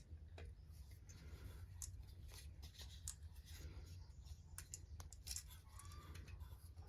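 Faint handling noises of small parts being worked by hand: scattered light clicks and taps over a low steady hum.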